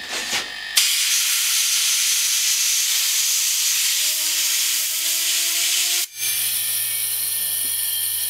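Compressed-air jet hissing as it is blown onto a Seagate hard drive's platter to spin it as a Tesla turbine, starting abruptly just under a second in. From about four seconds a faint rising whine comes from the disk spinning up. Near six seconds the air cuts out for a moment, then the hiss resumes with a low hum beneath it.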